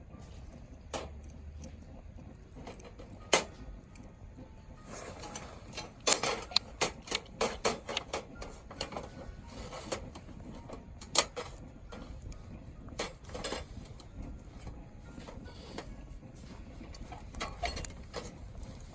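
Scattered sharp clicks and knocks, with a dense run of rapid clicking and rattling from about five to eight seconds in.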